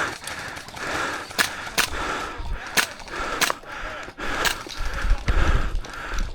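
Airsoft guns firing scattered single shots: sharp cracks at irregular intervals. Low rumbling of movement comes in about five seconds in.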